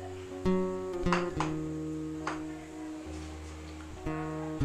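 Background music: plucked guitar notes over steady held tones, with a new note struck every second or so.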